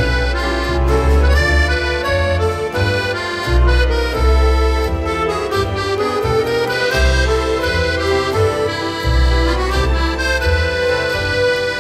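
Background music: sustained melodic tones over a pulsing bass line.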